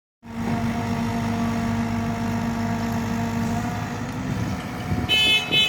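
Engine of a Caterpillar 307E mini excavator running steadily. About five seconds in, a high steady tone sounds over it.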